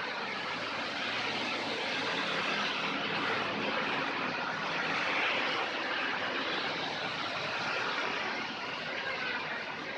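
Suzuki Baleno's AC compressor running engaged with a steady rough growl ('ngorok') over the running engine. The uploader traces the noise to defects in the compressor's piston and block.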